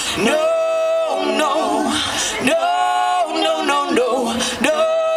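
Live amplified singing: a woman's voice holds three long, steady notes with short breaks between them, with little or no guitar underneath.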